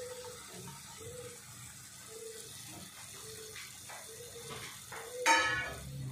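Faint sizzling of chopped drumstick in oil in an iron kadai on low flame, with a few light crackles and one sharp clink about five seconds in. A faint short tone repeats about once a second behind it.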